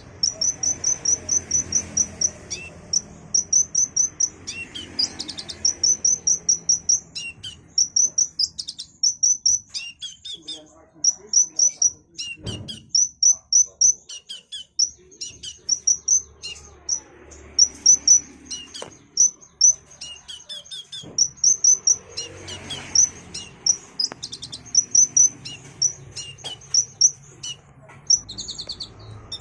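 Kolibri ninja (sunbird) singing a fast, high-pitched song of short chirps, several a second, in long runs with brief pauses.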